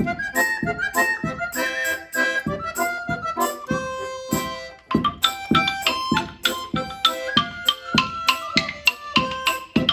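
Solo accordion playing variations on Russian folk songs: a quick running melody over steady bass-chord accents, a held note about four seconds in, then a livelier passage of rhythmic chords.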